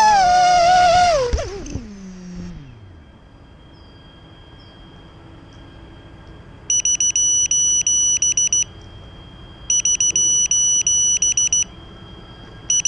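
Vortex 250 Pro quadcopter's motors whining, then winding down in pitch and stopping within the first couple of seconds as the quad comes to rest. After a few seconds of quiet, its onboard buzzer beeps in fast high-pitched pulses, in bursts of about two seconds separated by one-second pauses: twice, with a third starting at the end.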